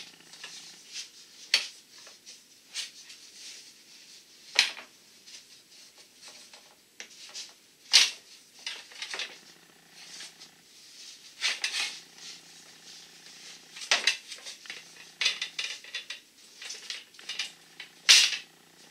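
Soft copper tubing being hand-bent around a round form, knocking and clicking against the form and the metal bench, with scraping and rubbing in between. The sharp clicks come irregularly, a few seconds apart, with the loudest at the start, about eight seconds in and near the end.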